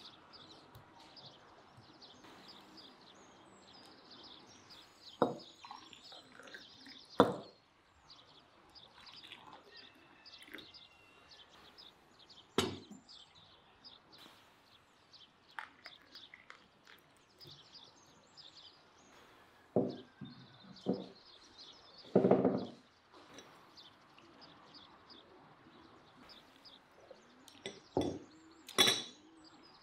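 Faint birdsong in the background, broken by several short, sharp clinks and knocks of tea glasses, spoons and dishes against a wooden table.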